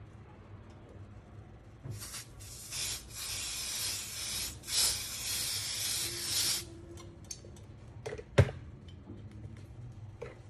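Aerosol olive-oil non-stick cooking spray hissing onto a non-stick frying pan in a few uneven spurts lasting about five seconds, starting about two seconds in. A single sharp knock follows about eight seconds in.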